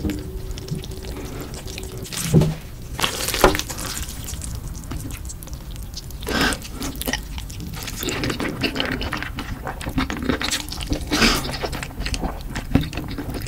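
Close-miked eating sounds: cold noodles in thick chili sauce stirred wetly with chopsticks, then slurped, with a few sharp wet slurps standing out.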